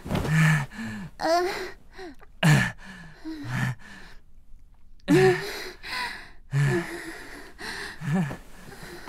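Sexual vocalizations: short, breathy gasps and sighs from voice actors, one after another every half second to a second, with a brief silence about four seconds in.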